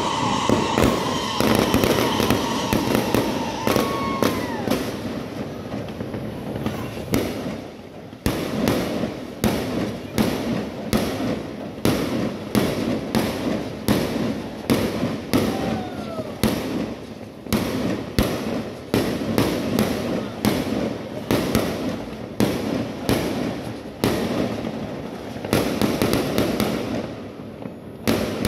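Many fireworks going off at once: a dense, irregular crackle of bangs and pops with no break, and a few short whistles among them.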